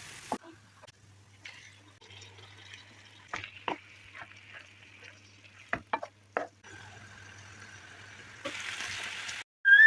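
Food frying in a pan with a faint sizzle while being stirred, the utensil knocking against the pan several times.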